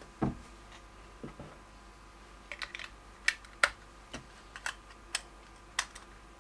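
Scattered small clicks and taps, about ten over a few seconds, as AA batteries are put into the plastic battery compartment of a Cisco Flip UltraHD camcorder.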